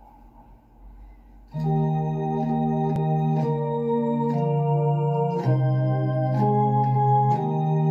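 Electronic organ playing a hymn introduction in slow, held chords, the chord changing every second or two. The first chord comes in about a second and a half in, after a faint hum.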